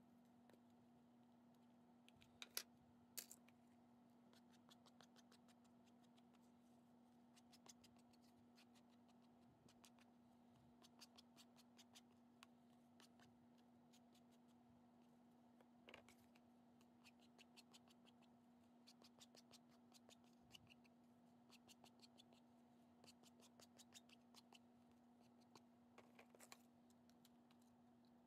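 Near silence with faint, quick clusters of light taps and clicks as a StazOn ink pad and its plastic case are handled and dabbed against card, over a steady low electrical hum.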